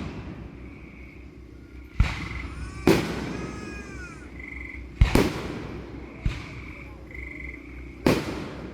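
Fireworks shells bursting in a finale: about five sharp bangs a second or two apart, each trailing off in a rumble with crackle. A faint, high, repeating trill is heard between the bursts.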